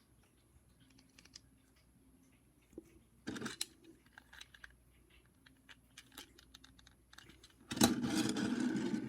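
Scattered small clicks and taps of plastic toy parts being handled, with a brief louder rustle about three and a half seconds in. Near the end a much louder, rough, continuous noise sets in.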